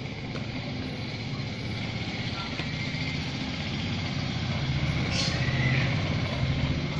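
A vehicle engine rumbling over a steady hiss, growing louder over the last few seconds, with a short high hiss about five seconds in.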